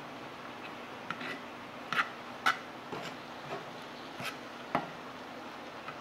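Deer heart and lion's mane mushrooms sautéing in a skillet with a steady low sizzle, while a utensil stirs and scrapes through them, knocking sharply against the pan about seven times.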